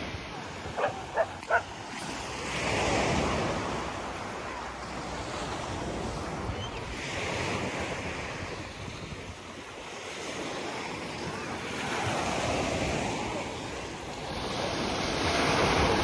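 Small surf breaking and washing up a sandy beach, swelling and fading every four to five seconds, with wind buffeting the microphone. About a second in, a dog barks three times in quick succession.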